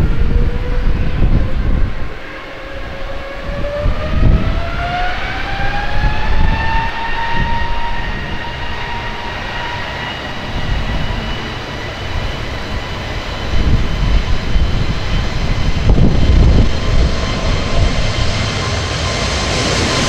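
Airbus A320neo's Pratt & Whitney PW1127G geared turbofan engines spooling up for take-off: a whine that rises in pitch over the first several seconds, then holds steady at take-off thrust. Gusty wind buffets the microphone throughout.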